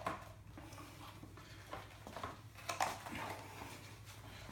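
Faint clicks and light taps of small metal bike parts and fittings being handled during assembly of the seat post, a few scattered knocks.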